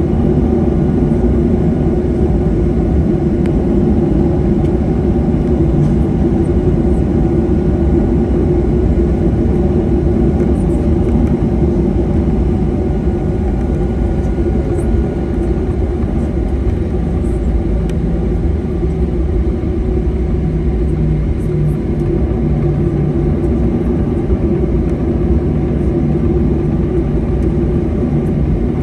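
Jet airliner's engines and airframe heard from inside the passenger cabin while taxiing: a steady low rumble with a constant hum.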